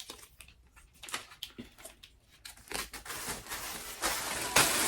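Light scattered clicks and rustling, then a crinkling, crumpling noise that grows louder over the last two seconds, like packaging material being handled.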